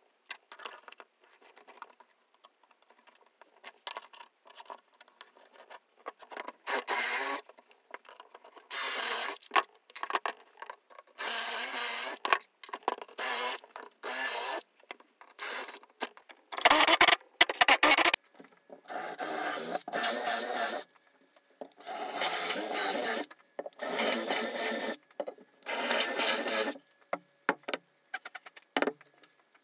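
Cordless drill running in about ten short bursts of a second or so each, boring into laminated chipboard, with a motor whine in each burst. Before it come light clicks and knocks of chipboard pieces being handled on a wooden workbench.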